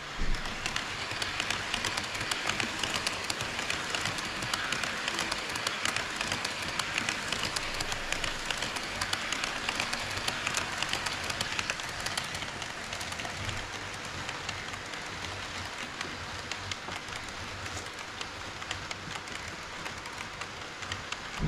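HO scale model train running on KATO Unitrack: a steady rush of wheels and motor with fast, irregular clicking of wheels over the rail joints, and a single sharp knock right at the start.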